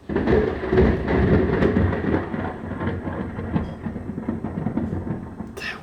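Thunderclap: a sudden loud crack followed by a crackling, rolling rumble that slowly fades over several seconds.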